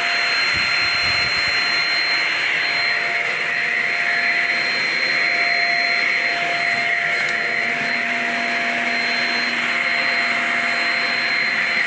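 Shark Rocket self-cleaning stick vacuum running steadily on the floor: a constant rush of suction airflow with a high whine over it.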